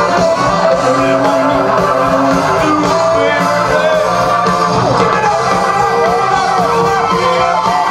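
Live rock band playing, with guitar and singing.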